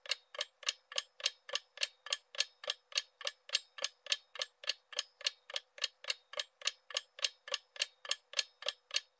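Clock-tick countdown timer sound effect, ticking evenly at about three and a half ticks a second.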